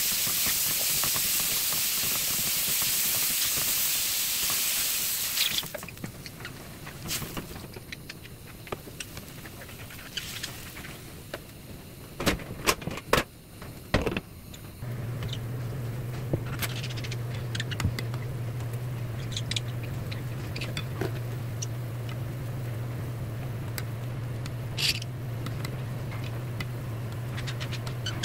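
Beef and cubed radish sizzling in a frying pan for the first five seconds or so, then quieter, with sharp clicks and clinks around the middle as a glass lid is set on the pot. After that a steady low hum with faint scattered ticks while the soup heats to the boil.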